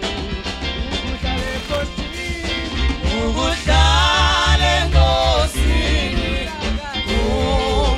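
Live band music with singing: a lead singer and backing choir over a drum kit and bass, with a long held vocal note sung with vibrato about halfway through.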